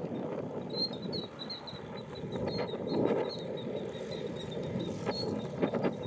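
Killdeer giving faint, rapid high peeping notes, about five or six a second, over a steady low background rumble.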